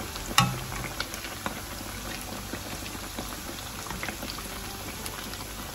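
Shrimp-paste bread sandwiches deep-frying in hot oil (about 175 °C): steady bubbling and sizzling with many small crackles. One louder knock about half a second in.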